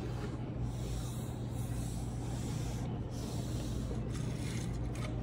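Steady low background hum, with faint rubbing and handling of plastic robot action figures being moved on a table.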